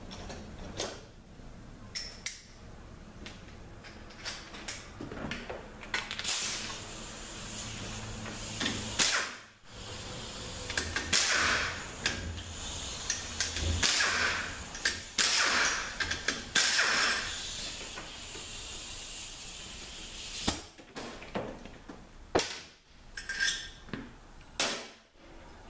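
Power tool running in several hissing bursts of a few seconds each, with sharp metal clicks and clinks before and after, as bolts are worked out of an RE4R01A automatic transmission's tail housing.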